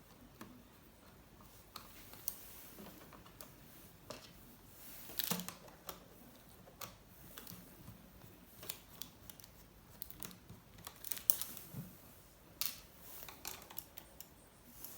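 Scattered light clicks and taps of small screws being backed out of an HP ProBook 4520s laptop's underside with a screwdriver, and of the screws and case being handled, with a couple of louder taps about five seconds in and around eleven seconds in.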